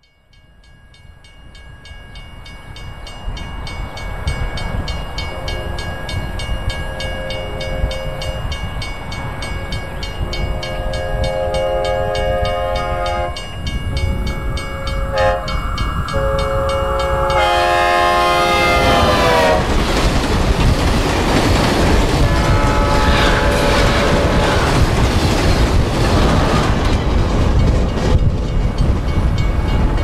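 Synthesized recreation of a Leslie S4T/SL4T train horn on a passing train. Over rising rail noise the horn chord sounds in repeated blasts, then drops sharply in pitch as the train passes, about 18 seconds in. The louder train rumble carries on with further lower-pitched blasts as it moves away.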